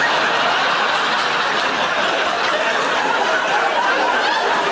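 Studio audience laughing, a dense, steady wall of laughter from a large crowd that holds at the same level throughout.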